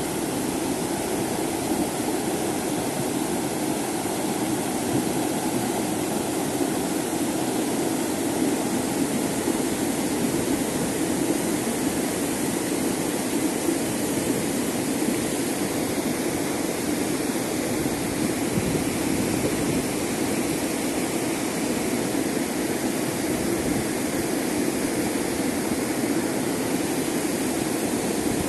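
Swollen mountain river in spate after heavy rain, its muddy water rushing over a stony bed with a steady, unbroken sound.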